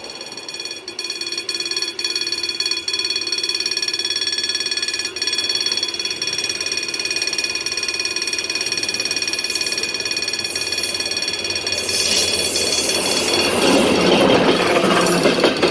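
Level-crossing warning bell ringing steadily, while a train approaches and its rumble grows louder from about twelve seconds in.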